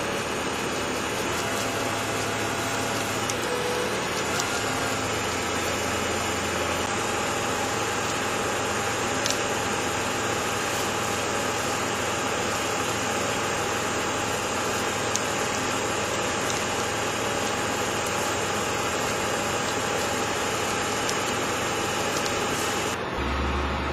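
Drilling rig's engine running steadily at idle, with a few faint clicks over it.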